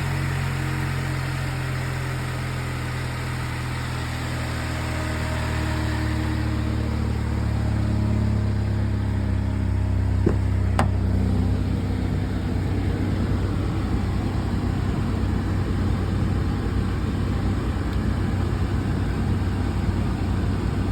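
High-mileage car engine idling cold, a steady running note with one sharp click about eleven seconds in; the owner hears a weird noise from the timing side of the engine that shows when it is cold.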